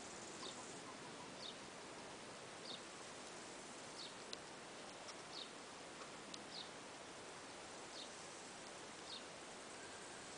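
A bird repeating a short, high, slightly falling chirp about once every second, over a steady faint hiss, with a couple of faint clicks.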